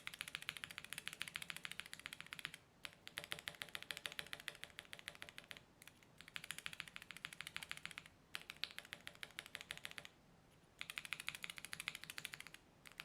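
Typing on Prime Keyboards Alpaca linear mechanical switches, factory-lubed with polycarbonate top and nylon bottom housings. Rapid key strokes come in runs of two to three seconds with short pauses between them, about six runs in all.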